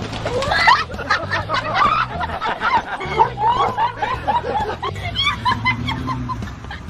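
People laughing and snickering in short, choppy bursts.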